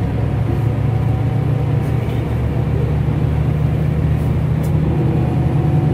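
Scania K360 coach's rear-mounted DC13 diesel engine running, heard from inside the passenger cabin: a steady low drone that rises slightly in pitch about halfway through.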